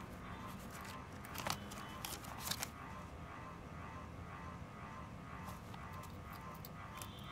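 Steady low room hum, with a few sharp clicks about one and a half to two and a half seconds in and fainter clicks near the end.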